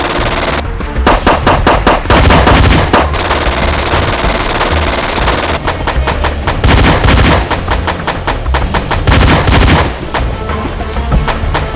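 Bursts of rapid automatic gunfire, added as sound effects, over background music. The shots come in several long bursts, the loudest about two, seven and nine seconds in.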